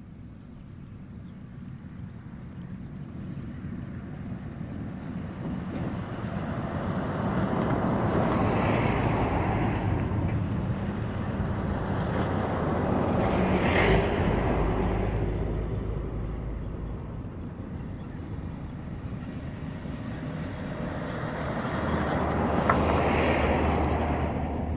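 Lorries, the nearer a DAF box truck, driving past: diesel engines running with tyre noise on the road. The sound swells twice, once about a third of the way in and again near the end.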